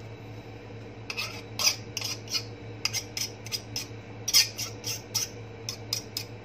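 Fork clicking and scraping against a mixing bowl in quick, irregular taps as cold margarine is cut into flour for pie crust.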